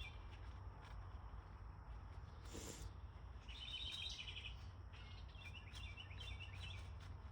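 Background songbirds singing two short phrases of rapid repeated chirps, about three and a half and five seconds in, over a steady low outdoor rumble, with a brief soft noise about two and a half seconds in.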